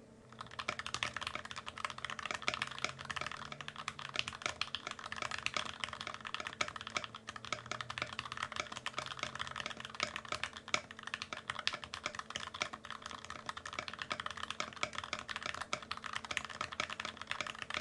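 Steady, fast two-handed typing on an aluminium NK65 65% mechanical keyboard fitted with lubed Gateron Black linear switches and plate foam, a dense run of key clicks and bottom-outs. The typing starts about half a second in and stops just before the end.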